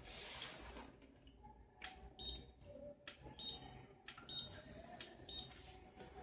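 Faint clicks and knocks of a plastic humidifier being handled, several followed by a brief high squeak or beep, over a low steady hum.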